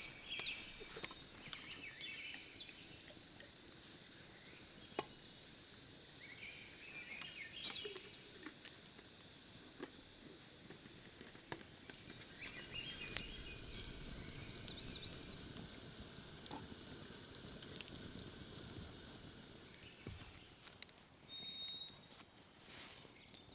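Quiet wilderness ambience with songbirds calling now and then: short high chirping phrases several times, and two steady high whistled notes near the end. A few light clicks stand out over a faint background hiss.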